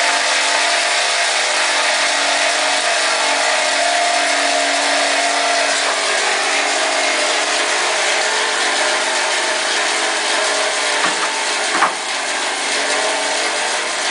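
Sawmill running steadily and sawing through wood, a continuous machine noise with a steady hum, with a couple of brief knocks near the end.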